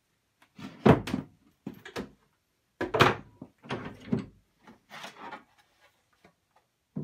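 Hand jointer plane taking several strokes along a board edge, about one a second: short scraping passes of the blade shaving the wood, some starting with a wooden knock.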